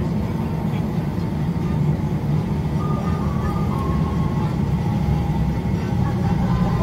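Steady low rumble inside a moving Sumaura Ropeway aerial cable car cabin as it travels along its cables. From about three seconds in, faint tones run over it.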